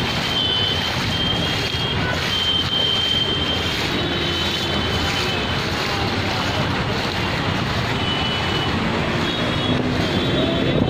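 Steady traffic noise on a flooded road, with faint high-pitched tones coming and going.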